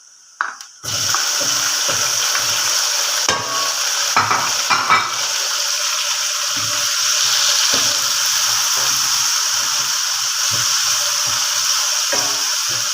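Chopped tomatoes going into hot oil with sautéed garlic and onion: a sudden loud sizzle starts about a second in and settles into steady frying, with a few knocks and scrapes of the spoon against the pan as they are stirred.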